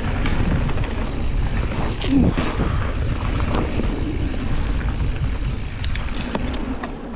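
Mountain bike riding down a dirt downhill trail, heard through a GoPro's microphone: a steady rush of wind and rumble, with the tyres and bike rattling and clicking over rough ground.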